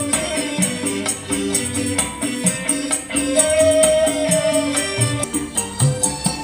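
Recorded music with a bass line and quick high ticks keeping time, played loud through a new loudspeaker cabinet being tested.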